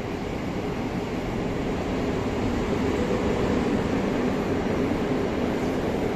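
A train running at a station platform: a steady low noise that grows a little louder after about two seconds.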